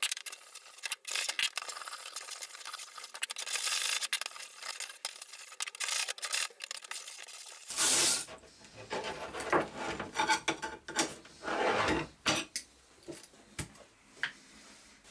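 Stiff hand brush scrubbing old steel files in a shallow tray of liquid, in quick back-and-forth strokes. About eight seconds in the strokes turn heavier and fuller, with knocks against the files and tray. They thin out to a few scattered clicks near the end.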